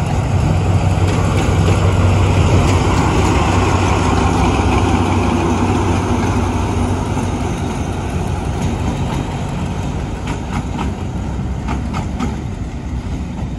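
Diesel locomotive running light past, its engine's steady low drone loudest a couple of seconds in and fading as it moves away, with a few light clicks near the end.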